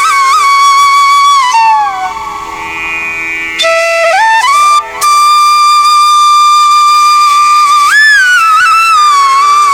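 Background music: a single flute line playing a slow melody of long held notes with sliding bends in pitch, softer for a moment a couple of seconds in.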